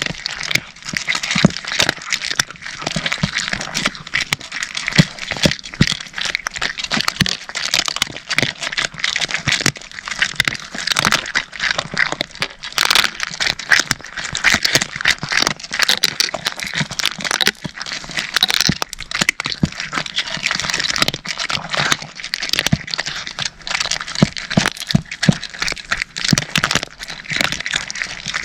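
Several cats chewing dry kibble: a dense, unbroken run of sharp crunches.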